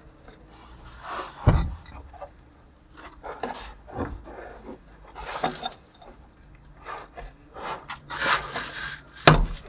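Rubbing, scraping and knocking of parts and tools being handled on a van's rear drum brake, after the brake shoes have come off. There are two sharp knocks, one about a second and a half in and one near the end.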